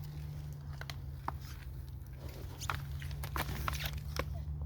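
Scattered light taps, clicks and scrapes of cardboard firework cake boxes and packing being handled, over a steady low hum.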